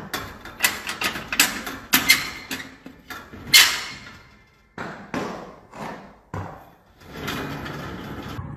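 Metal-barred horse stall door knocking and rattling in a run of sharp, irregular knocks as the horse pushes and bumps at it with its head, the loudest about three and a half seconds in, followed by a steadier rumbling rattle in the last second or so.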